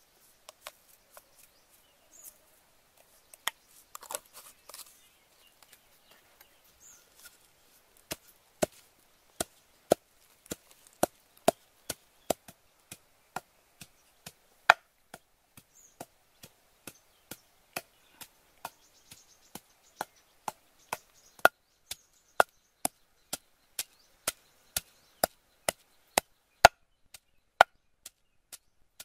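Wooden pestle pounding a yellow spice paste in a wooden mortar. A few scattered light knocks come first; from about eight seconds in, sharp strokes follow about twice a second.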